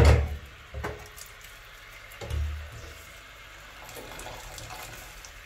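A sharp metallic clank as the steel lid comes off a pot of pasta water, then water splashing and running back into the pot as cooked spaghetti is lifted out. There is a dull thump about two seconds in.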